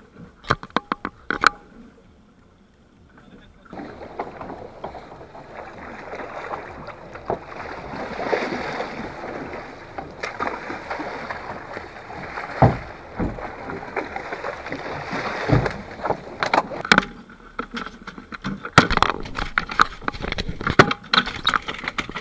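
Steady rush of wind and sea water around a small fishing boat under way, with a few sharp knocks at the start and a quick run of knocks and clatter over the last several seconds.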